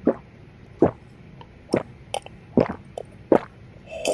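A person gulping down water, about five swallows in a steady rhythm a little under a second apart.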